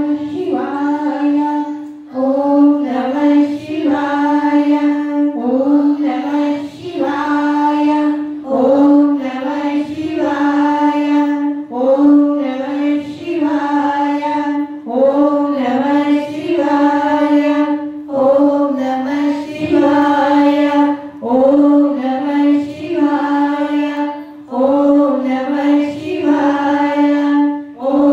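Devotional Hindu chanting for Shivratri: a sung chant on a steady pitch, repeating a short phrase every second or two.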